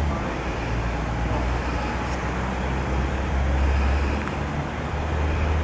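Steady low outdoor rumble under a faint even hiss, swelling slightly about three and a half seconds in.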